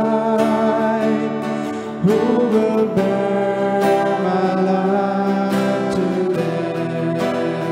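Slow worship music: a strummed guitar with sustained chords and a voice singing.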